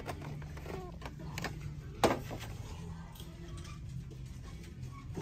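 Scattered clicks and rattles, the sharpest about two seconds in: a carded die-cast toy car's plastic blister pack knocking against metal peg hooks as it is pulled down from the display. A low steady hum runs underneath.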